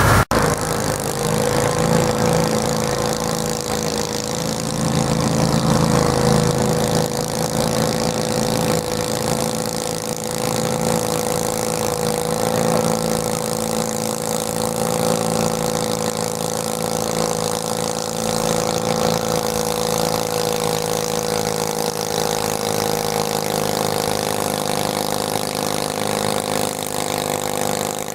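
Garden tractor engine running at a steady speed, its pitch wavering only slightly.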